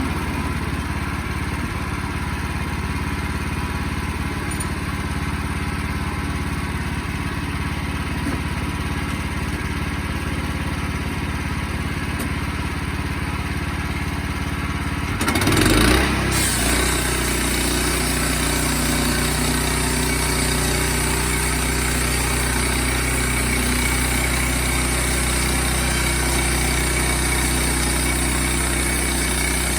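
Sawmill's engine running steadily. About halfway through a brief louder burst, after which the engine settles into a deeper, steadier hum.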